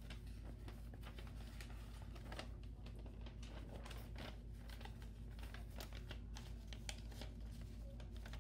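A sheet of paper being folded and creased by hand into a paper airplane: irregular soft crinkles and clicks.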